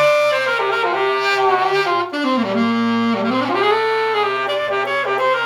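Saxophone playing a short melodic phrase with a growl: a raspy, buzzing tone over the note.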